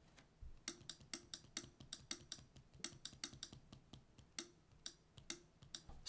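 Faint light clicks in an irregular run, about three a second.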